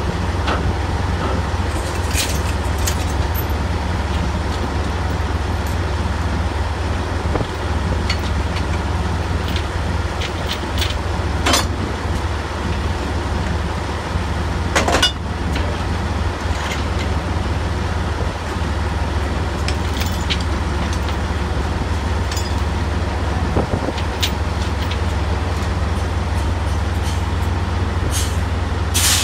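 Drilling rig machinery running with a steady low drone, broken by a few sharp metal clanks as the rig tongs are swung and latched onto the drill pipe.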